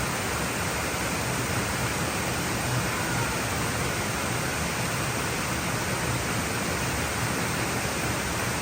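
Waterfall: falling water rushing in a loud, steady, even wash of noise.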